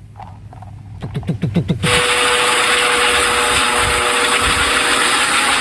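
A light turbine helicopter in flight: a loud, steady rush of rotor and turbine noise with one steady whine through it, starting abruptly about two seconds in. Before it, a fainter short rising whir.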